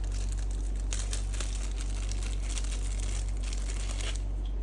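Plastic packaging crinkling and rustling in irregular bursts as small intercom parts are unwrapped and handled, over a steady low electrical hum.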